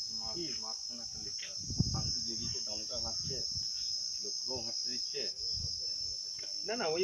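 Steady, high-pitched drone of an insect chorus in the trees, with people's voices talking underneath.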